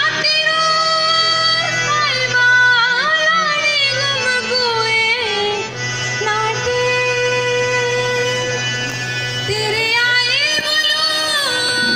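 Himachali Nati folk music accompanying the dance: a high singing voice carries the melody with gliding, long-held notes over instrumental backing and a steady low drone.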